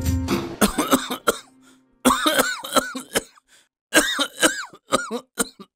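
A man coughing in three separate fits, each a quick run of coughs. The tail of the title music fades out in the first half second.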